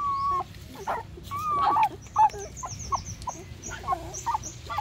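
Young puppies whining and squeaking while they suckle, a string of short high whines, some held briefly. Faint quick high chirps repeat about four times a second from about halfway through.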